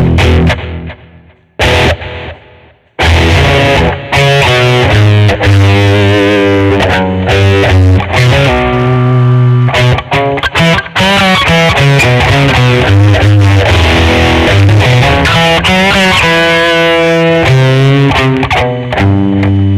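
Schecter Omen 6 electric guitar played through a distorted effects patch. A short pause about a second in, then steady riffing with held notes that waver with vibrato and bends.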